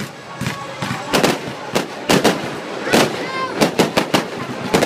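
Fireworks going off: a rapid, irregular string of sharp cracks and bangs, several close together, with a short pitched wail about three seconds in.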